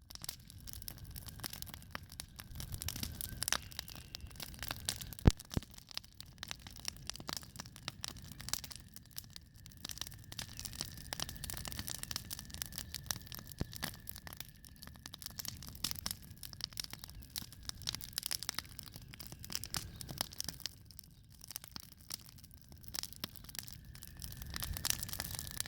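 Spring-cleanup debris fire crackling, with dense, irregular snaps and pops and one sharper pop about five seconds in.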